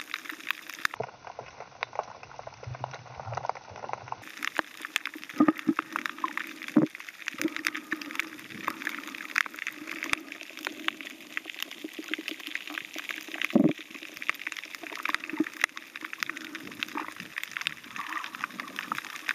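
Underwater sound through a submerged action camera: a muffled wash of water crowded with a continuous crackle of small clicks, and a few louder thumps, the strongest about fourteen seconds in.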